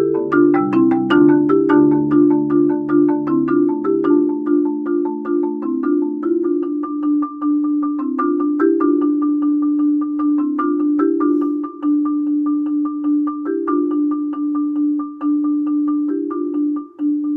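Marimba played with four mallets in a quick, even stream of struck notes. It opens with moving lines, then settles into a repeated low note under chords that change every couple of seconds.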